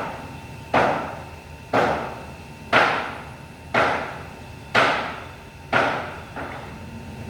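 Seven sharp knocks, evenly spaced about one a second, each ringing out briefly, with a softer eighth knock near the end, over a steady low hum.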